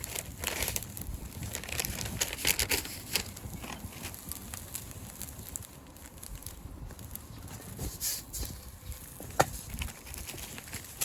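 Cooking in a wok over a charcoal fire: irregular scraping, clicks and crackle, busier in the first few seconds, with one sharper knock about nine seconds in.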